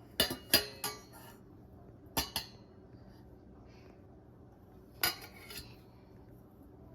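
Metal kitchen pots and utensils clanking against each other as a small child handles them: a quick run of three clanks at the start, two more about two seconds in, and a few again about five seconds in, each with a short metallic ring.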